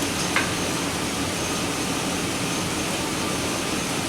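2005 GMC Sierra V8 engine running steadily with the AC and headlights on for load; the engine has a misfire (code P0300). A single small click about half a second in.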